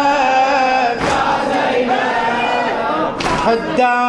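A crowd of men chanting a mourning lament together in unison, with a thud of chest-beating about a second in and again near three seconds in.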